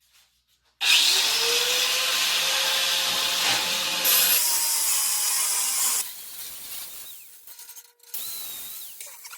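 Angle grinder starts about a second in, its tone rising as it spins up, then grinds a plasma-cut steel plate steadily for about five seconds before winding down. A second, shorter and quieter pass near the end.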